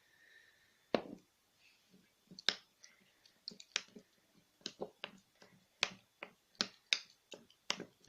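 A spoon clicking against the sides of a small cream jar as a mixture is stirred: sharp, irregular clicks, one or two a second, coming closer together towards the end.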